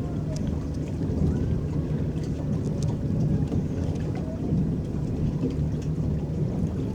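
Water splashing and rippling against the hull of a small electric boat under way, over a steady low rumble, with many small droplet-like ticks.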